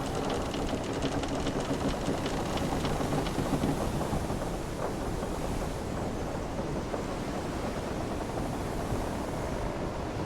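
Wooden sailing ship's hull and timbers creaking over a steady wash of ocean waves, with clusters of small clicks and ticks in the first few seconds.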